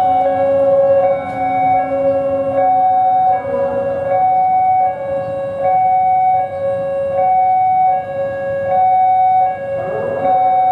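Electronic level-crossing warning alarm sounding a two-tone hi-lo signal, the higher and lower tones alternating about every three quarters of a second: the crossing is warning that a train is approaching. Near the end a short rising sound is heard alongside it.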